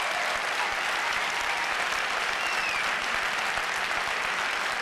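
Lecture-hall audience applauding steadily.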